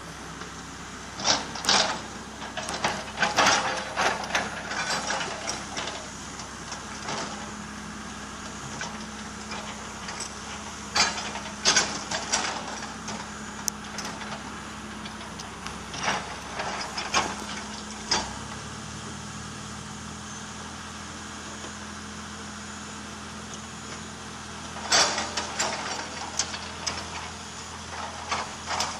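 Hydraulic excavator's diesel engine running steadily, its low note shifting about two-thirds of the way through, with repeated clusters of sharp knocks and clatter.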